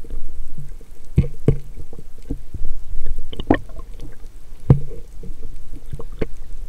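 Sea water sloshing and splashing around the microphone, with a low rumble and irregular short clicks and knocks.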